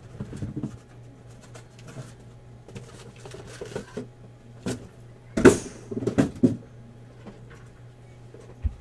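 Cardboard boxes being handled: sealed card boxes slid out of a shipping case and stacked, with light knocks and scrapes, then a louder run of knocks and thumps a little past halfway.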